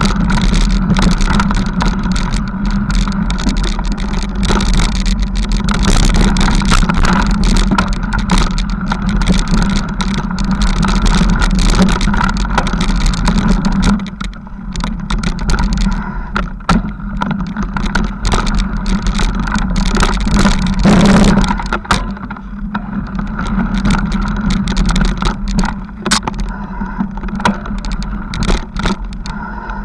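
Mountain bike rolling over a bumpy dirt forest trail, heard through a handlebar-mounted camera: a steady rumble of wind and tyre noise with frequent knocks and rattles as the bike and mount jolt over bumps.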